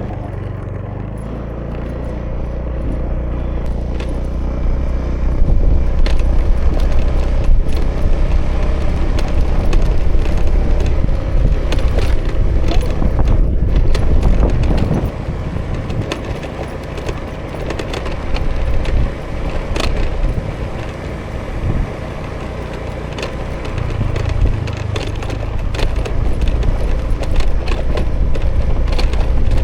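A 2018 Honda Vision scooter's small single-cylinder engine running under way, heard close up with road noise over it; the engine note swells about six seconds in, eases off around fifteen seconds and picks up again near the end. Scattered short clicks and rattles sound through it.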